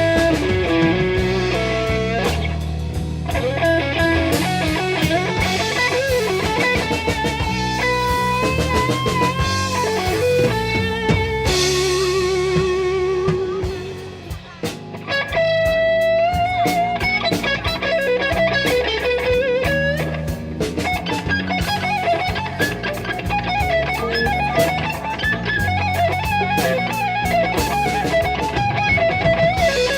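Electric guitar solo in a slow blues over bass and drums, with string bends and vibrato; the band drops back briefly about halfway, then a long bent note is held with vibrato.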